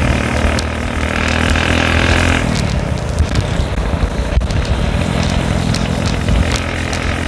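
Motorcycle engine running while riding. Its steady note is clear for the first couple of seconds, is mostly covered by a rough wind rumble on the microphone through the middle, and comes back near the end.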